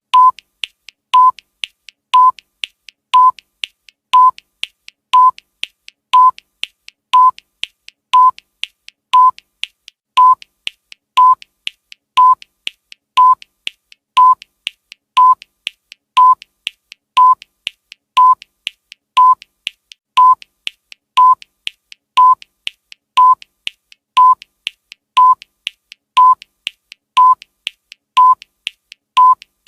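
Digital countdown timer beeping: one short, high electronic beep every second, with a fainter tick between beeps, marking off the seconds.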